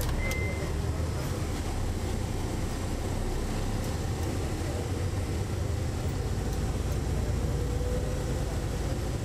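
Detroit Diesel Series 60 engine of a 2002 MCI D4000 coach running under way, heard from the rear seats inside the bus, its low rumble growing in the second half with a faint whine rising in pitch. A short high beep sounds about a third of a second in.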